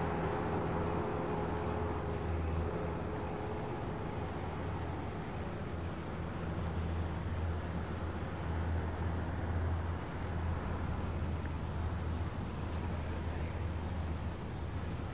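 Motor vehicle engine running with a steady low hum over outdoor background noise; a higher tone in it fades away in the first couple of seconds.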